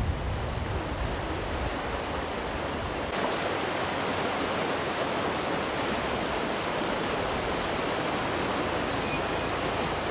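Floodwater rushing down a swollen stream after heavy rain, a steady noise of fast, muddy water. In the first few seconds, low wind rumble on the microphone sits under it. About three seconds in, the rumble drops away and the rushing water sounds fuller.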